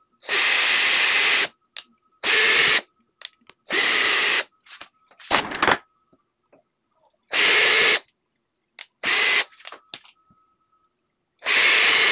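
Bauer 20V cordless drill driver drilling mounting holes through a medicine cabinet's thin back panel, running in seven short runs of about half a second to a second each with a steady high motor whine, stopping in between.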